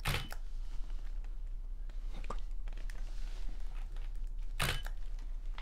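Two DSLR shutter releases about four and a half seconds apart, each a short sharp mechanical clack, with faint handling clicks and rustles of the camera and flash gear between them.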